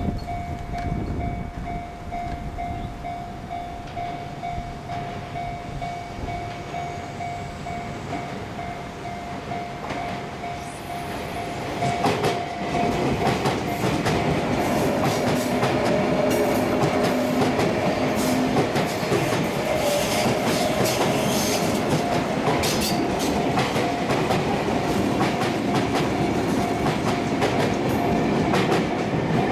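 A Japanese level crossing's warning bell ringing steadily while a Sotetsu electric commuter train comes through the crossing. The train gets much louder about twelve seconds in, its wheels knocking over the rail joints.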